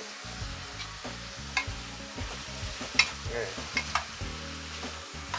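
Chicken with onion, bell pepper and carrot sizzling in a metal frying pan over high heat as it is stirred, with a few sharp clicks of the utensil against the pan.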